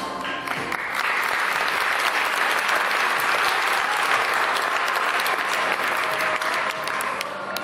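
Audience applauding, swelling within the first second and dying down near the end.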